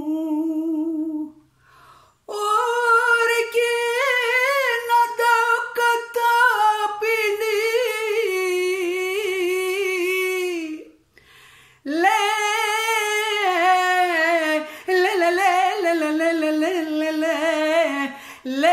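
A woman singing a traditional Asia Minor folk song unaccompanied, drawing out long ornamented vowel phrases with wide vibrato. She pauses briefly twice, about two seconds in and about eleven seconds in.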